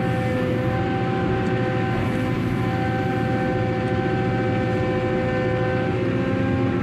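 Diesel engine and hydraulics of a grab-bucket material-handling crane running under load as it closes and lifts a full grab of crushed limestone: a steady drone with a high hydraulic whine of several steady tones that shift pitch slightly a few times.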